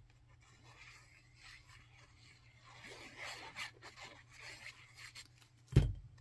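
Faint scratching and rubbing of a liquid glue bottle's tip dragged across cardstock as glue is squeezed out. Near the end there is a single dull thump as the glued paper piece is pressed down onto the work surface.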